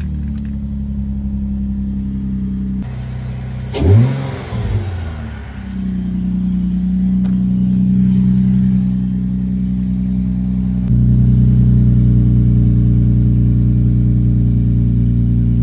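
2004 Infiniti G35's 3.5-litre VQ35 V6 idling, with one brief rev about four seconds in. In the last few seconds it is heard up close at the tailpipe, louder and deeper.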